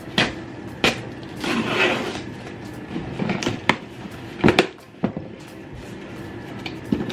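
Cardboard box being opened by hand: several sharp taps and clicks of the flaps being pried and pulled, with a longer scraping of cardboard between one and two seconds in.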